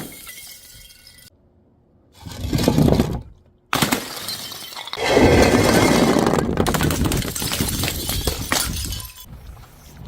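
Glass bottles breaking and shattering in several separate smashes. The loudest and longest comes about halfway through and runs for several seconds.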